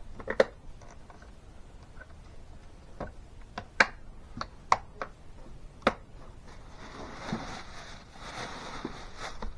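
Hand tools and plastic tool cases being handled and packed away: a string of sharp clicks and knocks, then a few seconds of rustling starting about six seconds in.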